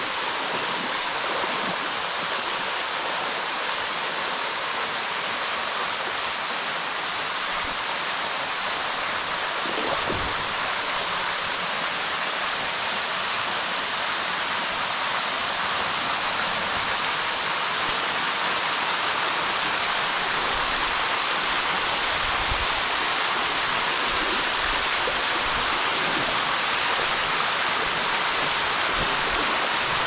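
Thin waterfall splashing down a rock face into a pool: a steady rush of falling water that grows a little louder toward the end, with a brief low bump about ten seconds in.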